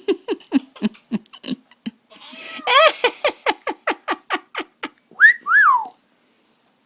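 Pet parrot vocalising: a rapid string of short, clipped chirps, about four to five a second, then two louder rising-and-falling whistles a little past five seconds in.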